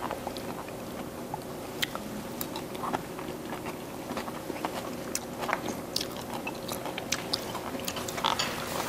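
People eating at a table: chewing, with scattered small clicks of spoons and chopsticks against dishes over a faint steady hum.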